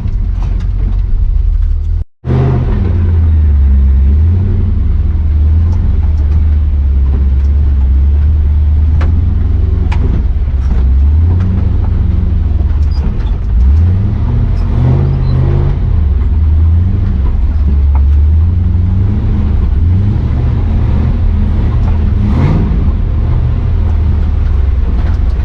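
Chevrolet 6.0 Vortec V8 in a square-body 4x4 pickup, running under load through mud, its revs rising and falling several times. The sound cuts out for an instant about two seconds in.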